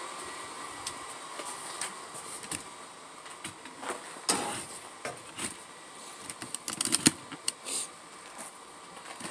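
Scattered light clicks and knocks of small parts and hand tools being handled, with a quick run of clicks about seven seconds in.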